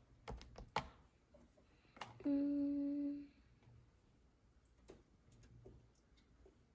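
A few light clicks of a plastic spatula tapping and scraping on a toy ice-cream maker's tray, then about two seconds in a single steady hummed note from a voice, held for about a second.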